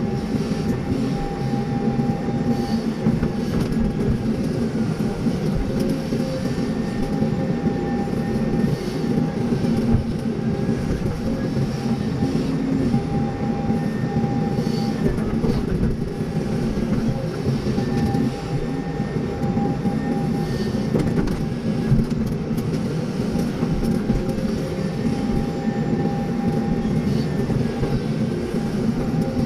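Excavator's diesel engine running steadily under working load, with a whine that rises and falls every few seconds and an on-and-off higher tone.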